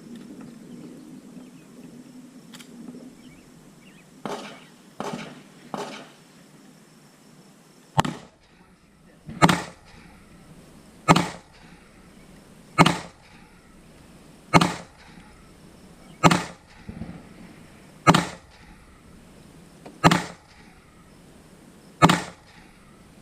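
Gunshots fired one at a time at a slow, steady pace: nine loud, sharp shots about two seconds apart, beginning about a third of the way in. Three fainter shots come a few seconds earlier.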